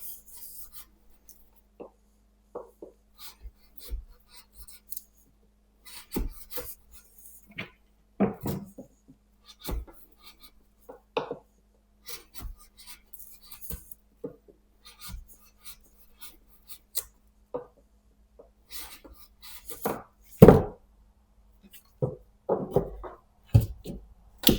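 Irregular knocks and clinks of hard objects being handled, one every second or so, with a louder thump about twenty seconds in.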